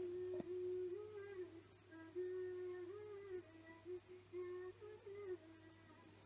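A person humming a slow tune softly: long held notes with small steps up and down, in a few phrases that stop about five seconds in.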